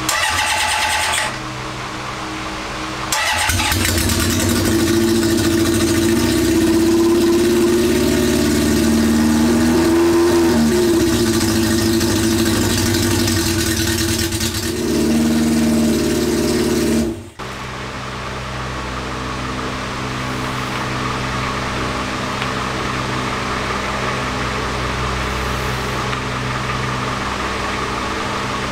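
Honda CB750 SOHC air-cooled inline-four being started on the electric starter and catching about three seconds in, then running on choke with a few rises and falls in revs. After a sudden break about 17 seconds in, it idles steadily while one cylinder is still slow to chime in.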